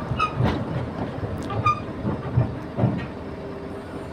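Komatsu D85SS crawler dozer driving down off a self-loader trailer: its diesel engine rumbles steadily under irregular clanks and knocks from its steel tracks on the trailer deck, with a few short squeaks.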